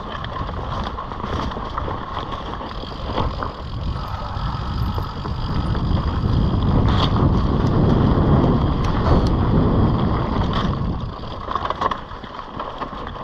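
Mountain bike rolling fast down a dirt singletrack: tyre rumble over the trail and wind on the action camera's microphone, with scattered sharp rattles and knocks from the bike over bumps. The rumble swells louder around the middle and eases off near the end.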